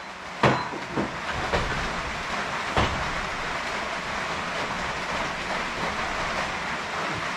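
Steady rain drumming on a metal shed roof, with a few sharp knocks in the first three seconds as metal engine parts are handled on the workbench.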